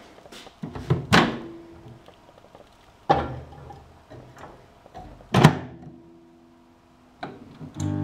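Microwave oven door knocked open and shut, each knock followed by a short metallic ring, with a knock in between as the corn cob is set down on the glass turntable; the shutting of the door is the loudest. Near the end, small clicks of the mechanical timer knob being turned.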